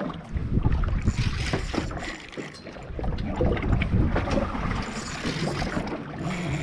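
Boat under way at sea, with wind buffeting the microphone in uneven gusts over a low rumble of water and hull. The noise eases off briefly about two seconds in.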